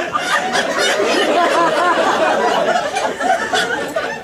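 Comedy-club audience laughing, many voices at once and loud.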